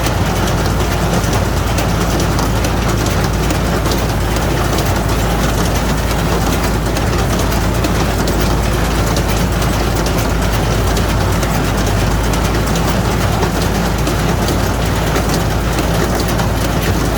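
Tractor-drawn straw baler running steadily together with the tractor engine driving it: continuous loud mechanical noise over a low engine drone, with no break or change.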